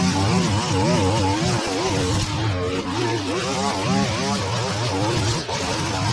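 Petrol line trimmer running at cutting speed, its engine pitch rising and falling quickly over and over as the throttle is worked and the spinning line cuts through grass.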